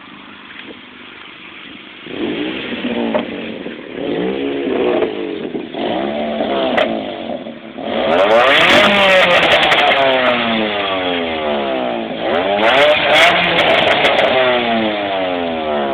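Nissan Sentra Spec V's four-cylinder engine idling, then revved in short blips from about two seconds in, and held high with repeated rises and falls from about eight seconds in. An exhaust leak makes it sound like a Honda.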